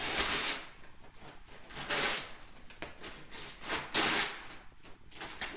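Wrapping paper being ripped and crumpled off a gift box by hand, in three rustling, tearing bursts.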